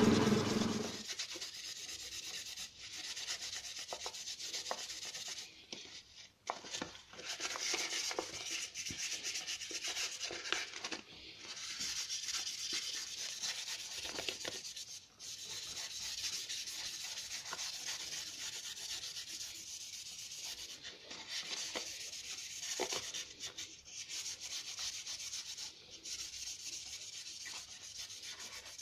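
Silicon carbide sandpaper rubbed by hand over a rainbow quartz egg: a steady, scratchy hiss with a few brief pauses. The flat lap's motor hum cuts off about a second in.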